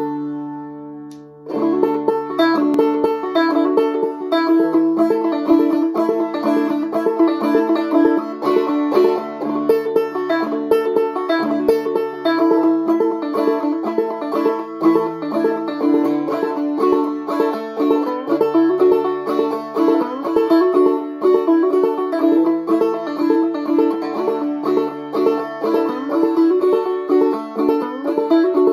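Semi-fretless banjo played clawhammer style in aDADE tuning, a fiddle tune in the key of D. Notes ring and fade briefly at first, then steady rhythmic picking starts about a second and a half in and runs on.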